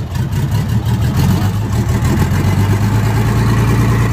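Truck's diesel engine running, its steady low hum rising in level about a second in and holding there, as if revved slightly above idle.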